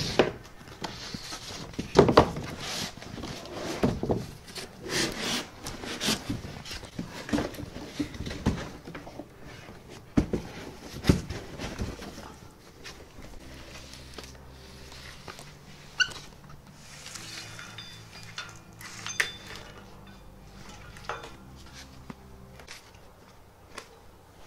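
Knocks, clatter and rustling from handling packing material and printer parts, loudest in the first half. Quieter steady tones come in about halfway.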